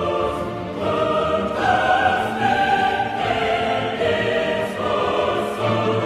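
Background choral music: voices singing long held notes that move to a new pitch every second or so.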